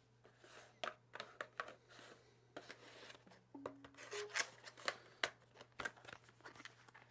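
Cardboard and plastic SSD packaging being handled: a white plastic tray slid in and out of its cardboard sleeve, giving quiet, scattered clicks, taps and rustles.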